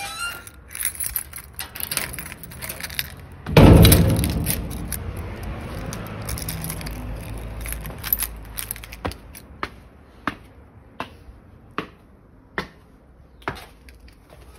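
A loud bang of a metal gate slamming shut about three and a half seconds in, its clang dying away over several seconds. After that, walking footsteps on concrete, a short tap about every 0.8 seconds.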